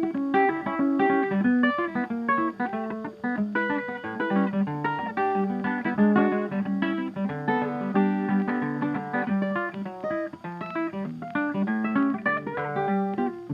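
Background music: acoustic guitar playing a plucked melody of short notes.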